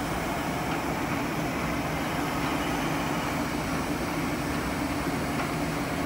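A 5-litre lab vacuum emulsifying mixer running, its homogenizer and agitator turning inside the sealed tank: a steady, even machine hum.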